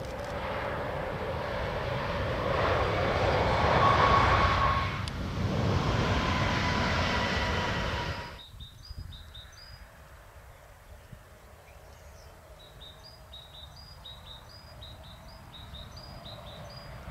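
CRRC Bison electric locomotive passing at speed: rushing wheel-on-rail noise with a steady high whine, loudest about four seconds in. The sound cuts off abruptly about eight seconds in, leaving a much quieter field in which a bird chirps repeatedly.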